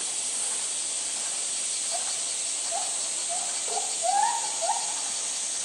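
Steady high-pitched hiss of a summer insect chorus, with a few short higher calls scattered through the middle, the loudest about four seconds in.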